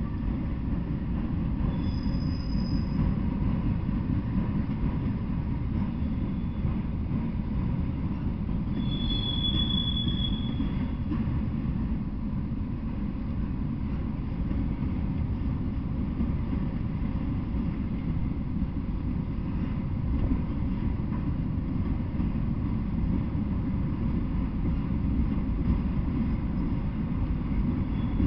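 Freight train of autorack cars rolling past with a steady low rumble. Two brief high-pitched wheel squeals come through, one about 2 seconds in and a longer one about 9 seconds in.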